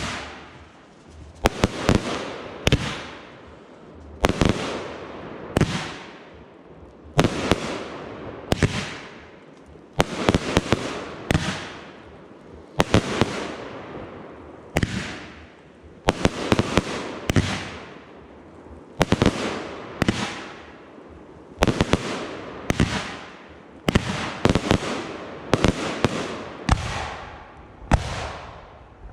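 Fireworks display: a fast, unbroken series of aerial shells bursting, each sharp bang followed by a tail that fades over about a second, about one burst every second or so.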